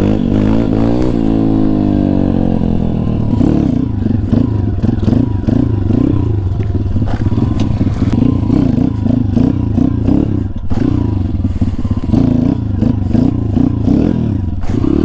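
Kayo pit bike's YX 140cc single-cylinder four-stroke engine running under the rider: the revs fall away over the first few seconds, then the engine note rises and falls about twice a second as the throttle is worked.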